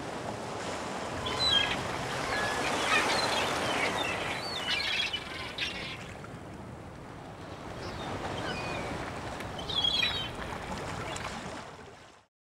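Sea waves washing with seagull cries over them, a handful of short calls scattered through, fading out near the end.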